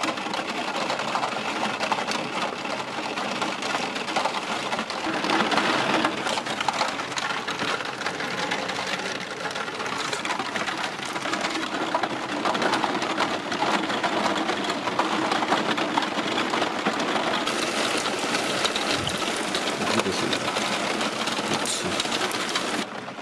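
Steady rain, a dense patter of many individual drops hitting close by.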